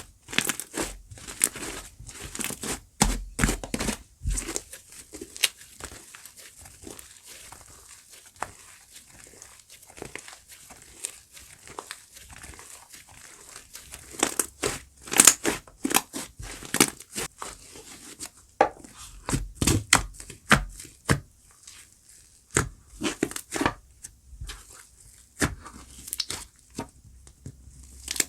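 Chestnut crumble slime being squished and pulled apart by hand, giving dense, irregular crackling and tearing sounds in clusters of louder pops.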